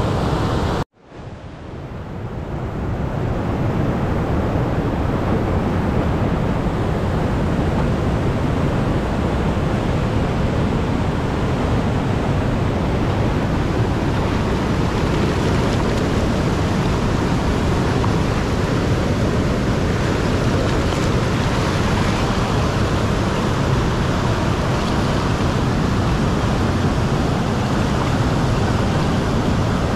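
River rapids: a fast mountain river rushing over rocks in a steady, loud rush of water. The sound cuts out suddenly about a second in and swells back up over the next couple of seconds.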